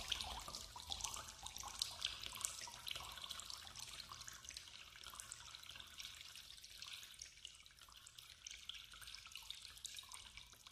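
Faint water dripping and trickling in scattered small drops, growing sparser and quieter.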